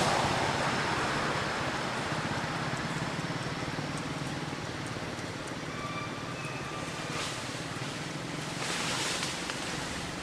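Steady outdoor background hiss, with a few faint short high tones about six seconds in and two brief swells of hiss near the end.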